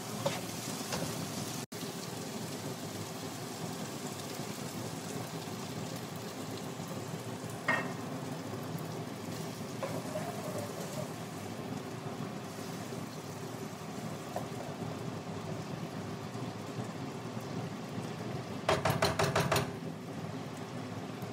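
Diced potatoes sizzling steadily in a frying pan, with a few single clicks of a spatula and a short, quick rattle of spatula strokes against the pan near the end.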